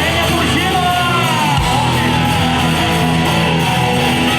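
Live rock band playing an instrumental break between sung verses: a loud guitar lead with bending, gliding notes over sustained guitar and bass chords.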